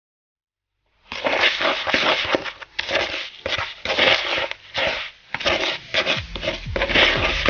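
A metal utensil scraping and stirring through crushed digestive biscuits moistened with melted butter in a bowl: quick, irregular scraping strokes, starting about a second in.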